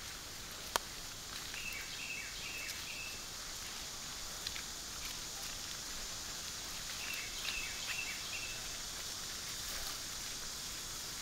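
Woodland ambience: a steady high hiss, with a bird giving two short runs of quick chirps. A sharp click comes about a second in, and there is faint rustling of men moving through brush.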